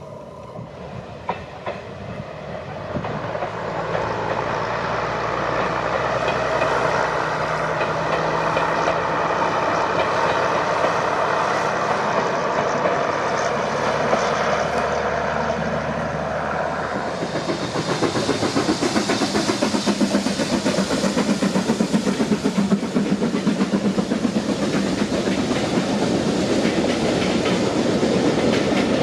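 Passing train: a steady running hum builds over the first few seconds. About two-thirds of the way in it gives way to a fast, even clickety-clack of wheels over the rail joints.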